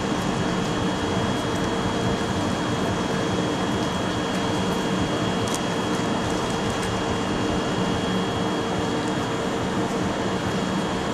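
Steady hum and whir of a standing train's onboard equipment, such as blowers or air conditioning, with a few constant tones and no change in level.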